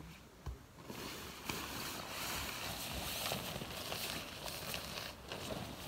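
Synthetic tent fabric rustling and crinkling as a large sheet of it is shaken out and lifted overhead, starting about a second in.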